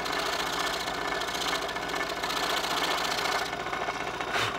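Scroll saw running, its fast-reciprocating blade working in an inside cut through a stack of basswood boards and cleaning out a corner. The cutting hiss stops about three and a half seconds in, leaving the saw's motor and blade running, with a brief knock near the end.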